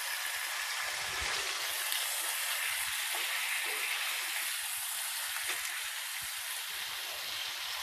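Chicken thighs sizzling in hot olive oil in a skillet as they brown: a steady hiss with fine crackling.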